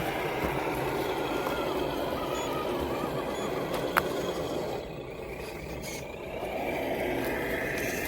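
A 3D-printed RC crawler's electric motor and gearbox whining as it crawls over the trail. There is a sharp click about four seconds in. The sound eases off for a moment and picks up again near the end.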